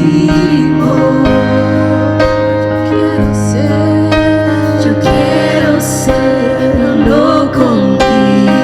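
Worship band music in an instrumental stretch without sung words: sustained chords over a steady beat.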